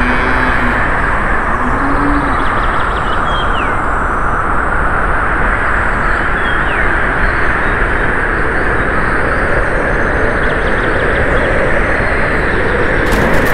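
Steady rushing noise with a couple of short bird chirps over it.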